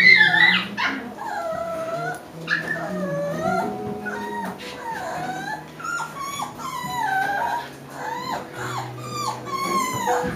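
Five-week-old Alaskan Klee Kai puppies making a continuous string of short, high-pitched calls that bend up and down in pitch as they play-fight, loudest right at the start.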